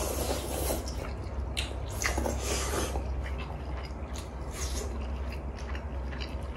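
Close-miked eating of noodles and chicken: wet slurps of udon noodles at the start and again about two seconds in, with chewing between them.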